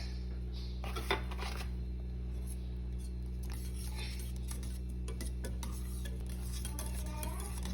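Kitchen utensils and dishes clinking lightly, scattered small clicks and knocks, over a steady low hum.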